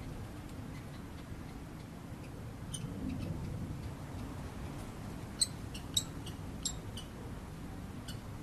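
Irregular faint, sharp metallic clicks over a steady low rumble, the three loudest coming about half a second apart a little past the middle.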